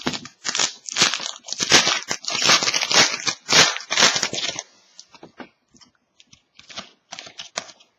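Plastic trading-card pack wrapper crinkling and tearing as a pack is opened, a dense crackle that stops about four and a half seconds in. Faint light clicks and taps of cards being handled follow.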